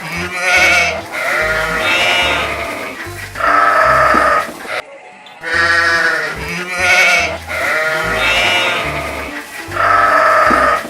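Sheep bleating again and again, wavering calls about a second long, over backing music with a steady bass line.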